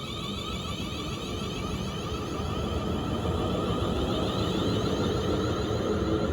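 Class 37 diesel locomotive's English Electric V12 engine working hard, a low rumble with a steady high whine over it, growing louder as the locomotive approaches.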